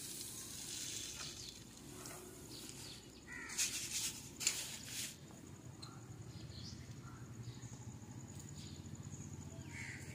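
Plastic bag rustling as dried green mung beans are poured from it into a plastic basket, in a few short bursts about a third of the way in. A few faint chirps sound in between.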